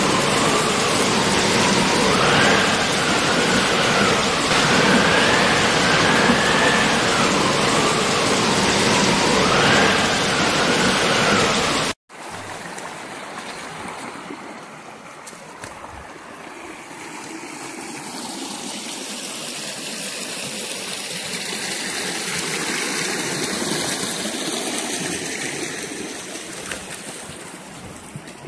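Loud, steady rushing noise with a faint tone that rises and falls every couple of seconds, cut off abruptly about twelve seconds in. After the cut, water in a shallow rocky stream flows over stones, swelling and then fading toward the end.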